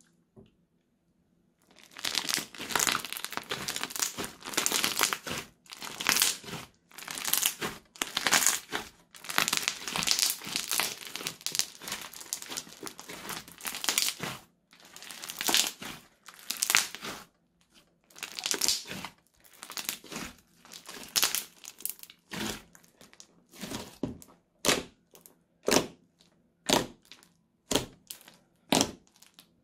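Thick crunchy slime being squeezed, kneaded and poked by hand, crackling and crinkling in dense bursts. About two-thirds of the way through the crackles come apart into separate short pokes, about one a second.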